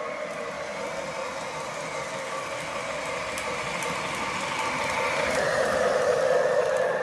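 O gauge model train running on its track: a Menards Gen II Santa Fe diesel locomotive pulling Lionel passenger coaches, its motor and wheels making a steady running noise that grows louder as the train approaches.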